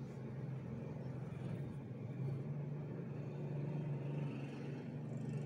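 Steady low rumble in the background, even throughout.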